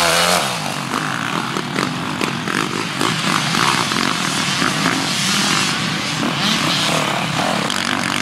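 Enduro motorcycle engines revving and blipping on a muddy course. One bike passes close at the start, its pitch dropping, and after that the engines go on with quick on-off throttle bursts.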